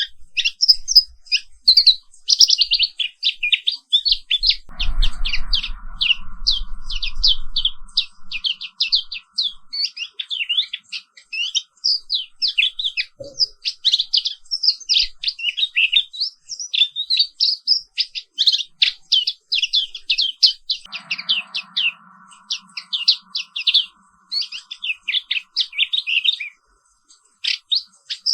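Pleci Papua, a white-eye, singing a fast, unbroken run of high chirps and trills. A faint steady hum comes in about five seconds in and again a little past twenty seconds.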